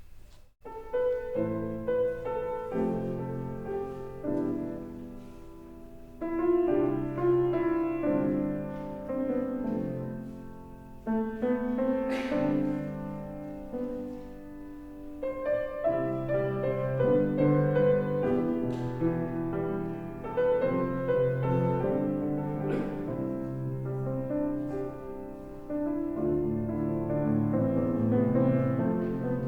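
Piano music, slow and classical in style, starting about half a second in after a brief hush.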